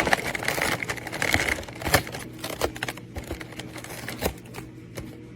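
Cardboard advent calendar being handled as its door is punched open: irregular clicks, taps and crinkles, thicker in the first couple of seconds, then sparser.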